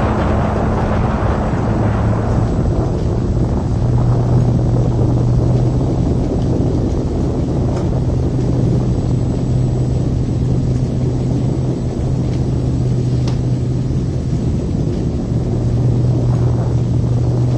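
Deep, continuous rumble of an atomic bomb explosion. It begins with a brighter roar that dies down over the first couple of seconds, then settles into a steady low roll over a constant low hum.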